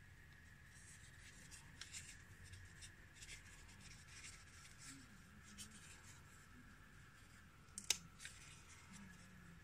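Faint paper and tissue rustling as a small sticker sheet and a wipe are handled, with one sharp click about eight seconds in.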